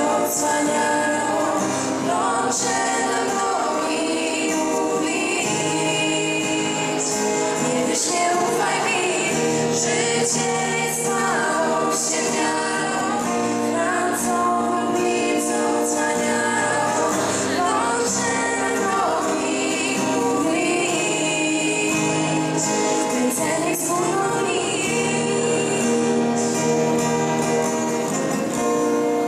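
Girls singing a song together over an acoustic guitar. Near the end the two standing singers lower their microphones and stop, and the guitar plays on.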